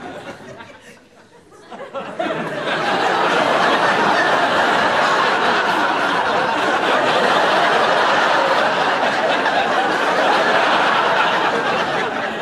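Studio audience laughing: quiet briefly near the start, then sustained loud laughter from about two seconds in, easing a little near the end.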